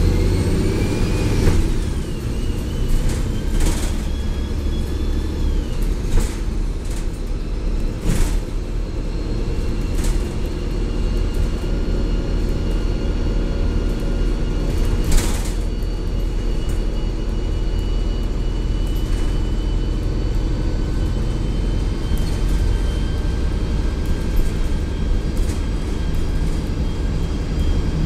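2004 Gillig Advantage bus's Cummins ISL diesel engine and Voith D864.3E automatic transmission running underway: a steady low rumble with a transmission whine that rises in pitch over the first couple of seconds, then holds steady. A few sharp knocks cut in now and then.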